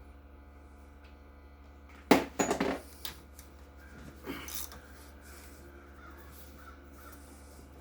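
A wrench working tight fasteners on a seized engine's connecting rods. About two seconds in comes a sudden loud burst of metal clanking and grating, then a single knock and a softer scrape.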